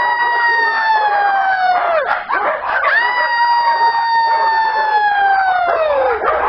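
Two long howls, each held on one pitch for a few seconds and then sliding down at the end: the first fades out about two seconds in and the second starts about a second later. Dogs' noise runs underneath.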